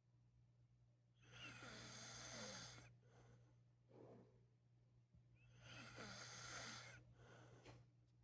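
A sleeping man snoring: two long snores about four seconds apart, each followed by a shorter, softer breath.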